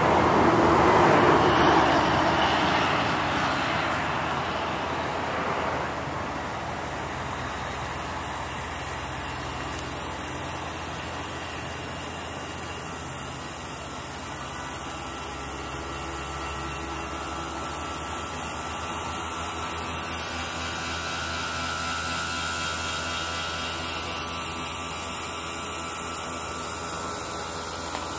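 A passing engine rises to its loudest a second or two in and fades away by about six seconds, leaving a steady background hum.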